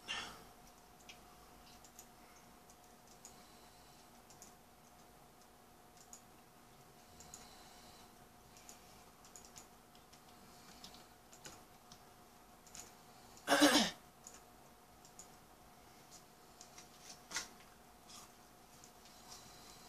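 Faint, scattered clicks of a computer mouse over a steady low hum. About two-thirds of the way through comes one brief, louder sound that falls in pitch.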